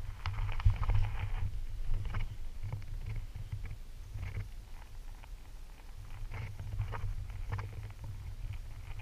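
Low rumble of wind and handling noise on the microphone as a fabric bucket is carried over sand, with scattered light scratches and taps throughout.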